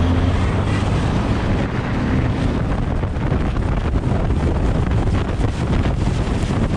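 Wind buffeting the microphone of a camera mounted on a moving car, with the Suzuki Swift Sport's engine running underneath as it drives through an autocross course.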